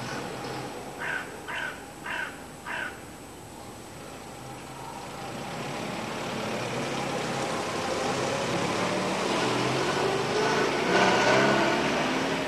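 A crow caws four times in quick succession, then a car approaches along a forest road, its engine and tyre noise growing steadily louder and loudest near the end.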